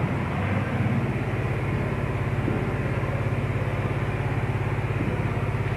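A machine running steadily: a low hum with a fast, even throb.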